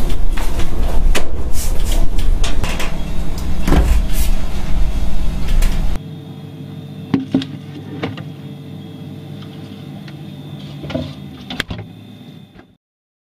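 A loud low rumble with many clicks and knocks, cut off abruptly about halfway through by a much quieter steady hum with a few scattered knocks, then silence just before the end.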